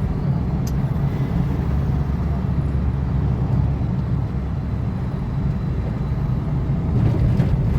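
Steady engine and road rumble of a car driving, heard from inside the cabin, with one sharp click about a second in.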